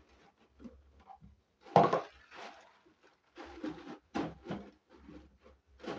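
Pots and kitchen utensils being set down and arranged: a series of knocks and clatters, the loudest about two seconds in.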